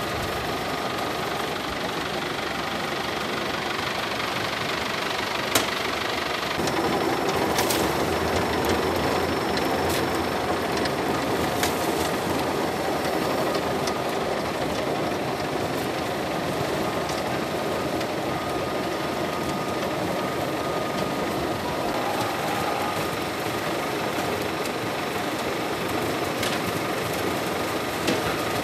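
Grape-receiving machinery running steadily: an inclined slatted conveyor and a destemmer. A few sharp metallic clanks come through, and the running gets fuller and louder about six and a half seconds in.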